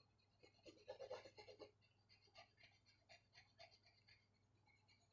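Faint scratching of a pen colouring on paper in quick short strokes, busiest about a second in, then sparser.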